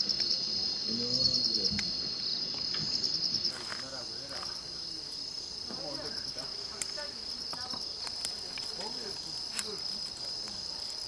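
Crickets chirping: a steady high-pitched trill that pulses rapidly for the first few seconds and then runs more evenly. A few faint sharp clicks sound over it.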